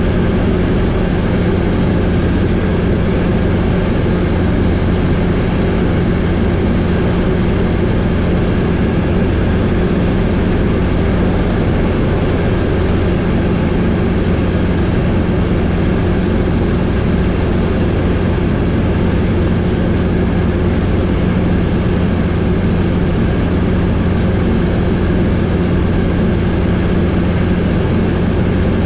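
Helicopter in flight: steady, loud rotor and engine noise with a constant low hum, unchanging throughout.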